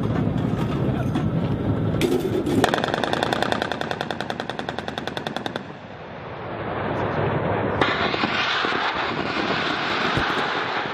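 Attack helicopter's rotary cannon firing one sustained burst of about three seconds, a very rapid, even rattle of shots, after a low rumble. From about eight seconds in, a broad rushing noise builds and holds.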